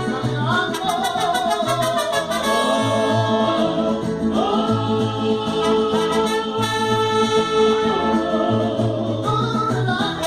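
Mariachi band playing with brass and singing: long held trumpet and vocal notes over a low bass line that steps between notes.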